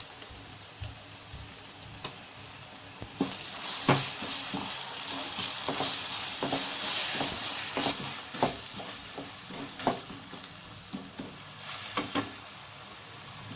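Onions and ginger-garlic paste sizzling in hot oil in a pan while a spoon stirs, with irregular clicks and knocks of the spoon against the pan. The sizzle grows louder about three seconds in.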